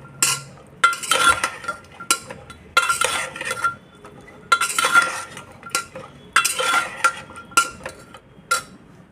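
A spoon stirring and scraping against a pressure cooker in irregular strokes, about one a second, each with a light metallic ring, mixing chickpeas with beaten curd and spices.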